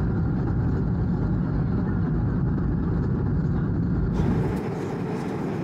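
Steady rushing drone of a jet airliner's engines and airflow heard from inside the cabin in flight, shifting slightly in tone about four seconds in.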